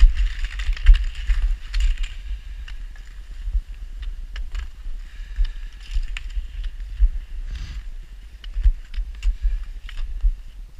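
Footsteps of a person and a leashed husky walking on packed snow and slush, with irregular clicks and knocks over a steady low rumble from the body-worn camera.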